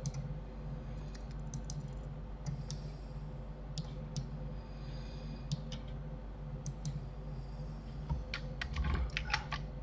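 Scattered clicks of a computer keyboard and mouse, with a quick run of keystrokes near the end, over a steady low hum.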